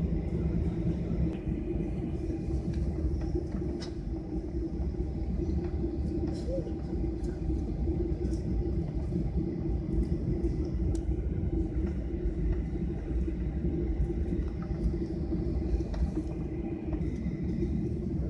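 Jet airliner cabin noise while taxiing, heard from a window seat over the wing: the engines running with a steady low rumble and a constant hum, without the rising roar of takeoff thrust.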